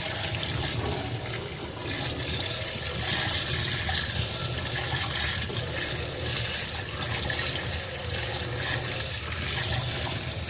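Water running steadily from a tap, rinsing soap and dirt off the plastic housing of a Shark vacuum cleaner.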